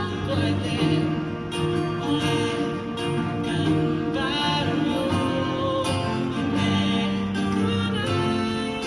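Live band music with guitar, played on stage during a pop song.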